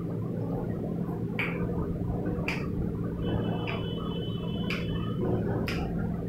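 Steady low hum with five short, sharp clicks about a second apart. A faint high double tone sounds briefly in the middle.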